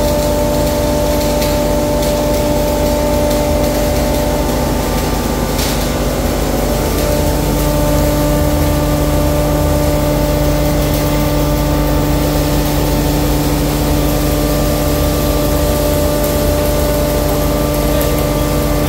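Stainless steel pulverizer (hammer-mill masala grinder), belt-driven by an electric motor, running steadily with a loud whirring hum. About seven seconds in, the hum changes pitch and grows slightly louder.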